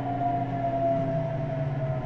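Whine of a Meitetsu 100 series car's Mitsubishi GTO-VVVF traction inverter and motors, heard inside the carriage over the rumble of the running train. The main tone slowly falls in pitch, as the train slows.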